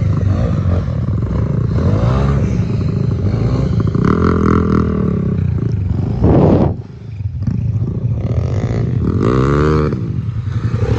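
Motorcycle engine revving hard over and over, rising and falling in pitch, as the rear wheel spins on loose gravel. A loud rev comes about six seconds in, then the sound drops briefly before more revving near the end.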